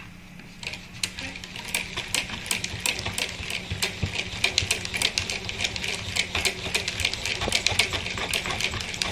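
Hand-cranked generator (a small electric motor turned by hand) being spun fast, its mechanism clicking rapidly at about eight clicks a second, starting about half a second in; it is powering an LED and a small computer fan.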